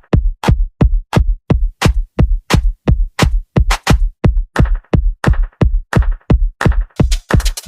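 Electronic dance music built on a steady drum-machine beat, nearly three kick hits a second, with crisper high percussion filling in near the end.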